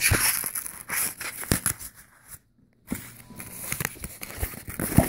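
Paper packing and packaging rustling and crinkling while an opened shipping box is unpacked by hand, with scattered clicks and knocks. The sound cuts out completely for about half a second near the middle.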